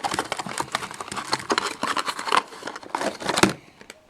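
Rapid, irregular clicking and crinkling of hard plastic being handled: a speedcube and its packaging. There are a few louder clacks about two and three and a half seconds in.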